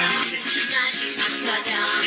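K-pop song playing at a live sound check rehearsal, full band backing track with a steady beat and possibly faint vocals.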